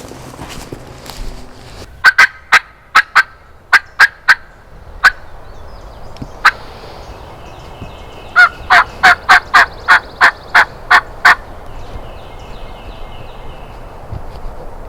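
Series of loud, sharp hen-turkey yelps from a hunter's turkey call: a run of about eight notes, a single note, then a quicker run of about ten, over steady wind noise.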